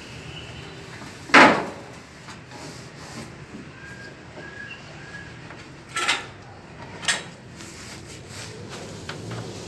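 Three short scrapes from a hand knife working plaster ceiling moulding. The loudest comes about a second and a half in; two shorter, quieter ones follow around six and seven seconds.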